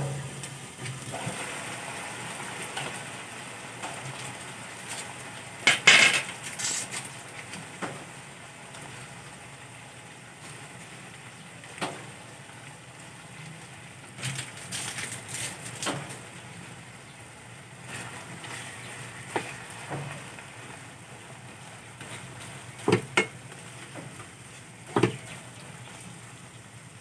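Pork pieces simmering and sizzling in a nonstick pan, with a few clatters and knocks of the glass lid coming off and a wooden spatula striking the pan while stirring, the loudest about six seconds in.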